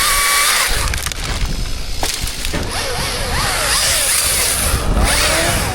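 Wood cracking and splintering as a cut section of tree gives way, just after a chainsaw's steady whine cuts off under a second in.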